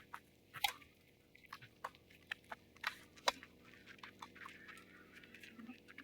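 Faint, scattered sharp knocks and clicks of tennis play, ball on racket, court and shoes, two of them standing out about half a second and about three seconds in.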